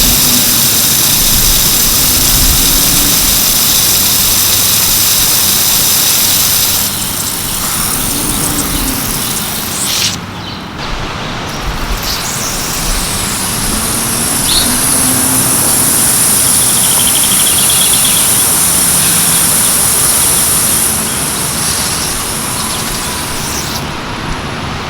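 Lawn irrigation sprinkler heads spraying water at full pressure, a steady loud hiss with a faint wavering low hum underneath. The hiss drops away briefly about ten seconds in.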